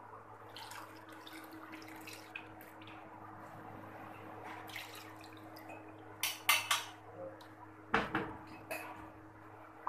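Cornflour slurry being poured from a bowl into hot milk in a wok while a silicone spatula stirs it, a soft wet sloshing over a steady low hum. A few sharp clinks of a spoon and bowl against the pan come about six to nine seconds in.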